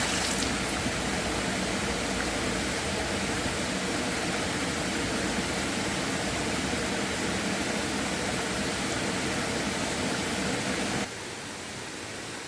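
Steady rush of flowing river water. About eleven seconds in it cuts suddenly to a quieter, softer rush.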